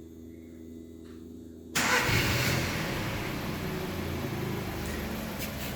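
VW Golf 6 engine being started, most likely by the alarm's remote start: a low steady hum, then a little under two seconds in the engine fires and runs on steadily.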